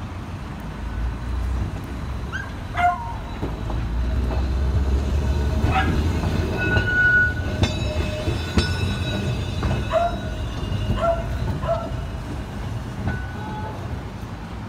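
Blackpool heritage electric tram passing close by: a low rumble of steel wheels on the track that grows loudest about halfway through, then eases off, with a few sharp clacks. Short, high calls that rise and fall come and go over it.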